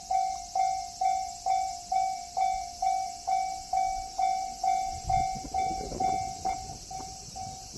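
Japanese railway level-crossing warning bell ringing its steady electronic clang, about two strikes a second. A low rumble swells briefly about five seconds in, and the bell sounds softer near the end.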